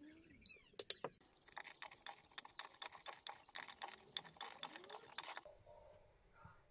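Salad being tossed with plastic salad servers in a bowl: rapid rustling of dressed lettuce leaves and clicking of the servers, starting about a second in after a few sharp clicks and stopping abruptly about five seconds in.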